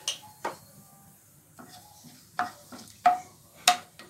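Cumin seeds sizzling faintly in hot ghee in a nonstick kadhai, while a wooden spatula stirs them and knocks and scrapes against the pan several times, the loudest knocks near the end.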